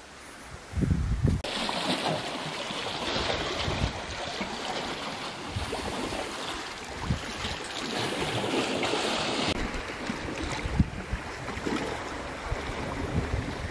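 Wind gusting across the microphone in irregular low rumbles, over a steady hiss of wind that comes up about a second and a half in and eases off around ten seconds.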